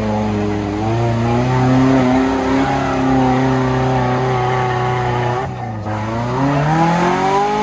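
Off-road 4x4 engine running hard at steady high revs, dropping off briefly about five and a half seconds in, then revving up again.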